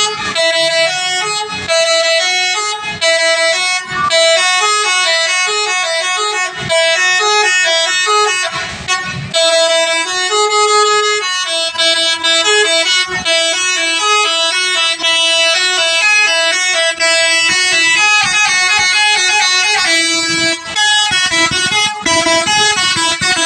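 Basuri telolet horn on a bus playing a long multi-note melody: loud horn tones stepping quickly from note to note, with only brief breaks between phrases.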